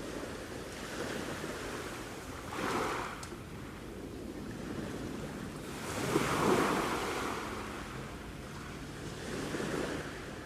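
Sea waves washing in and breaking, in three surges, the loudest about six seconds in.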